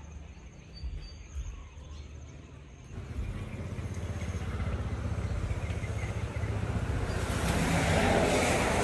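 A motor vehicle's engine drawing near, a low steady hum with road noise that starts about three seconds in and grows louder toward the end.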